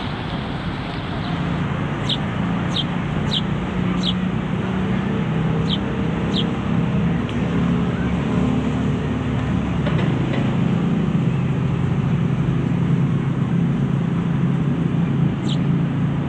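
1984 Kenworth truck's V8 diesel engine idling steadily, its note settling a little lower about ten seconds in. A few short high chirps sound over it.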